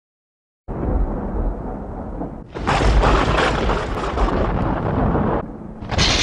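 Thunder-like rumbling sound effect for a logo intro. It starts abruptly just under a second in and swells into a loud crash at about two and a half seconds. After a short dip it crashes again near the end.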